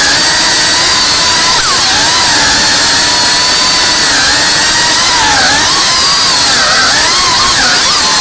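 Cinewhoop FPV drone's motors and ducted propellers whining loudly, heard up close from the drone's own camera, the pitch wavering up and down with the throttle, most in the last few seconds.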